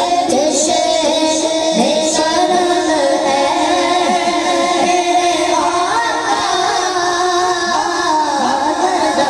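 A boy's voice reciting an Urdu naat (devotional poem in praise of the Prophet) into a microphone, sung in long held melodic lines.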